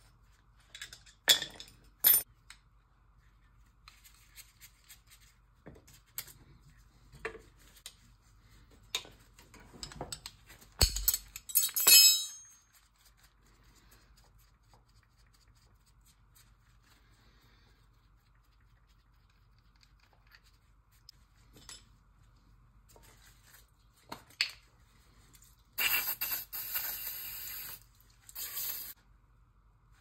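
Metal tools and oil-burner parts clinking and scraping as the burner is taken apart and cleaned by hand, with a louder clatter about a third of the way in. Near the end come two hissing spray blasts, the second shorter.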